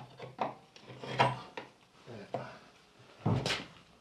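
Irregular scrapes and knocks of hand tools and metal parts being handled during brake and hub assembly on an axle, half a dozen short sounds, the longest near the end.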